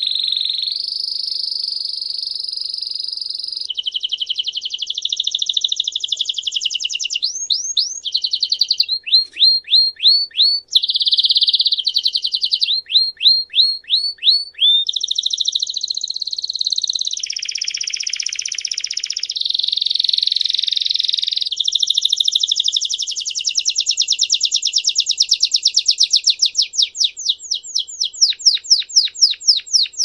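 Belgian canary singing a continuous song of fast trills and rolls, broken by runs of quick sweeping notes, several a second, around the middle and again near the end.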